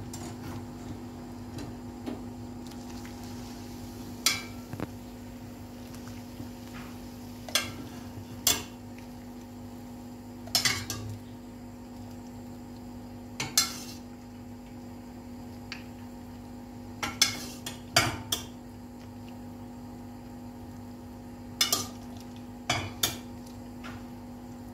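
Scattered sharp clinks and knocks of metal on a metal baking tray, about a dozen spread through, over a steady low hum.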